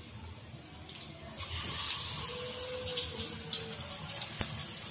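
Besan-battered, potato-stuffed green chillies frying in hot oil in a kadhai: the oil starts sizzling about a second and a half in and keeps up a steady hiss with small crackles.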